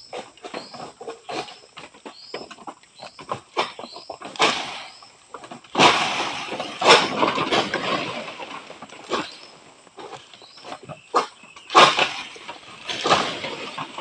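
Oil palm fronds being cut and pulled down with a long harvesting pole: a run of sharp cracks and knocks, then several loud rustling rushes of palm leaves, the loudest about six and twelve seconds in.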